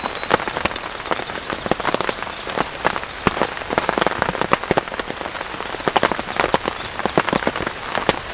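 Rain hitting the fabric of a pop-up ground blind, heard from inside: many uneven, sharp taps of drops each second over a steady hiss.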